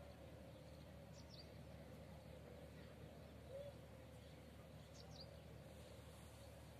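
Quiet outdoor ambience with a faint bird chirping twice, short falling high notes about a second in and again about five seconds in.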